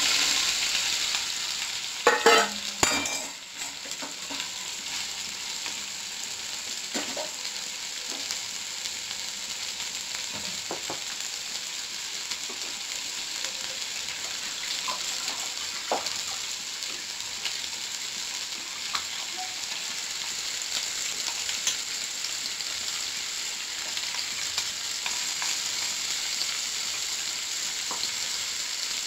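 Bitter gourd pieces sizzling as they fry in hot oil in a steel pan, a steady hiss. There are a few loud metal clanks of the steel bowl and ladle about two seconds in as the pieces are tipped in, and faint scattered ticks and pops after.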